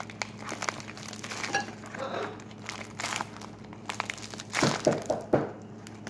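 Crinkling and crackling of a homemade paper-and-tape squishy as it is handled and squeezed, with a louder run of crackles about four and a half seconds in.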